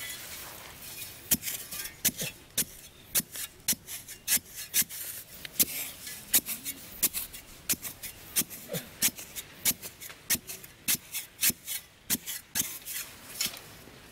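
A flat wooden stick jabbed and scraped into dry sandy soil to dig a hole, with sharp scraping strikes about twice a second.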